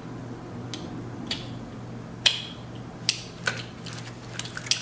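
Small plastic toy seesaw being worked by hand: a string of short, sharp plastic clicks and taps at uneven spacing, coming quicker near the end, over a faint steady hum.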